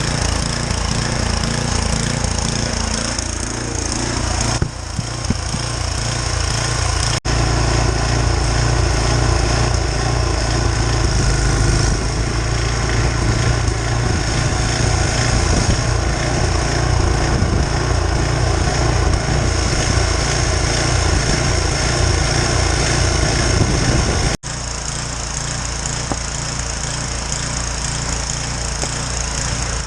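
A powered snow-clearing machine running steadily as it moves heavy wet snow, with a few abrupt breaks in the sound.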